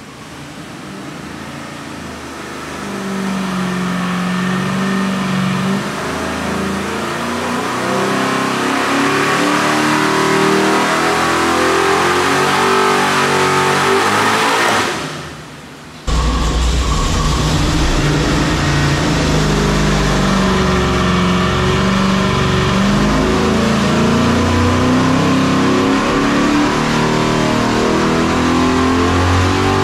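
Carbureted 540 cubic inch big-block Chevy V8 making a full-throttle pull on an engine dynamometer, heard through the control-room glass, getting louder as it climbs through the revs and then falling away about fifteen seconds in as the pull ends. About sixteen seconds in the sound cuts to the engine heard up close in the dyno cell, louder and running hard with a strong low rumble.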